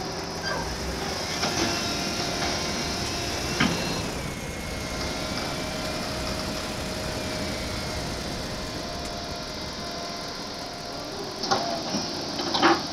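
A steady engine or machinery rumble, with a few sharp knocks and a cluster of louder knocks near the end.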